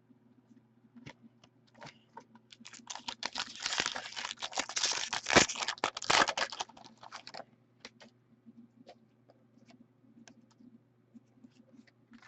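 Trading cards and a foil pack wrapper being handled. A dense patch of crinkling and clicking lasts about five seconds, with scattered single clicks before and after.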